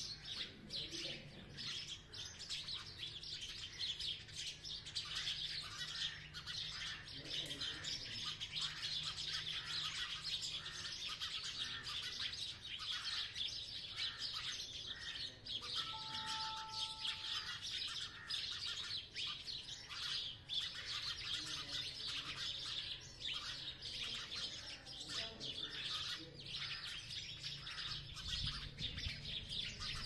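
A flock of sparrows chirping together, many short overlapping chirps with no pause.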